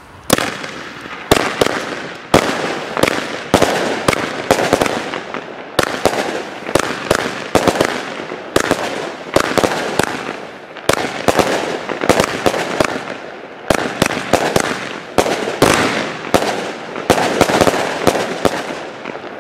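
Skala 25B consumer firework battery firing its shots in quick succession, about one to two a second: sharp launch bangs and aerial bursts, each trailing a noisy tail. The first shot goes off about a third of a second in.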